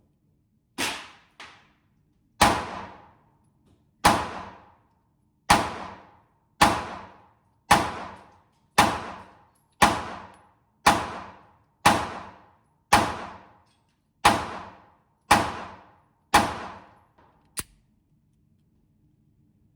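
9 mm Glock 26 pistol firing at an indoor range: about fifteen shots at roughly one a second, each with an echoing tail. A short sharp click comes near the end.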